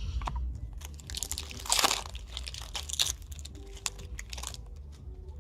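Crinkling and crunching of a trading card pack's foil wrapper being handled, in a run of crackles that is loudest about two seconds in.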